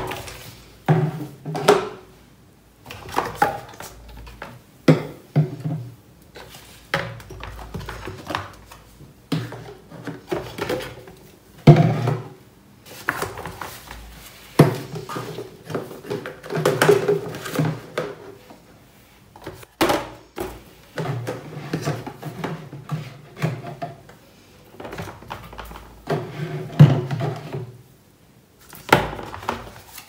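Plastic toiletry bottles and tubes set down and shuffled on a bathroom cabinet shelf: a long run of irregular knocks and thunks with handling rustle between them, echoing in a small tiled room.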